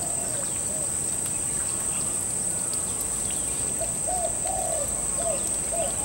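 Bird-park ambience: a steady high insect drone throughout, with an unseen bird giving a quick series of short arched hooting notes from about four seconds in, and scattered short high bird chirps.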